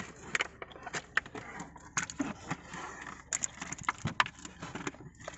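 Scattered light clicks and knocks at irregular intervals over a quiet background.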